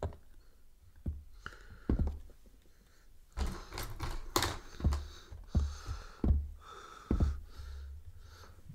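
Paint tubes and brushes clattering on a wooden tabletop as someone rummages through a pile of them, with a run of sharp knocks and rattles, busiest from about three and a half seconds in until near the end.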